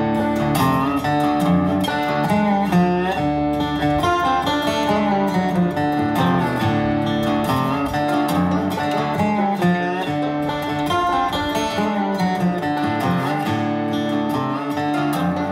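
Background music led by plucked acoustic guitar.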